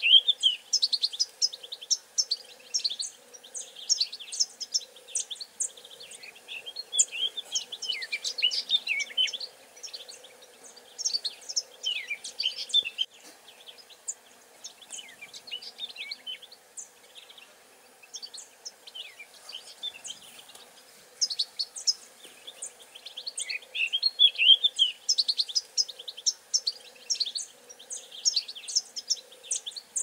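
Many small songbirds chirping and twittering in quick, high trills, in clusters that thin out about halfway through and build again near the end, over a faint steady insect drone.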